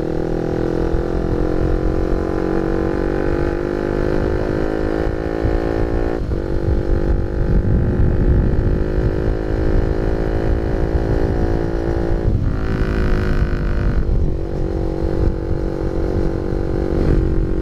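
Honda Sonic 150R's single-cylinder four-stroke engine running through an aftermarket CLD Monster exhaust while riding, loud. The engine note climbs slowly and drops sharply about six seconds in, about twelve seconds in and again near the end, as the gears are shifted up. Wind rumbles on the microphone underneath.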